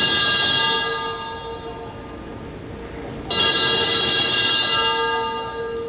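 A bell struck twice, about four seconds apart, each stroke ringing on and slowly fading.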